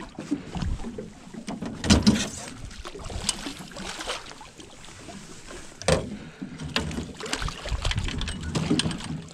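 A hooked channel catfish splashing at the surface beside a small boat as it is scooped into a landing net, with irregular sharp knocks of the net and gear against the boat, the loudest about 2 s and 6 s in.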